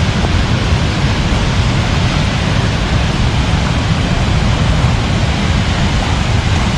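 Loud, steady rush of a waterfall in heavy flow, close by.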